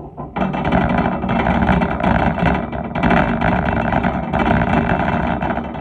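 Metal shopping cart rolling across a hard store floor, its wheels and wire basket rattling loudly. It starts moving abruptly about half a second in and rattles on until near the end.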